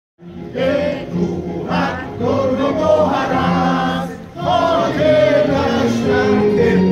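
A group of voices singing a song together, with long held notes over a steady low tone; it starts suddenly just after the start.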